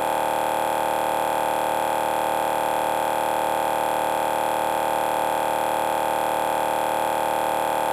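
A single steady tone held at one unchanging pitch, with a faint buzzy edge.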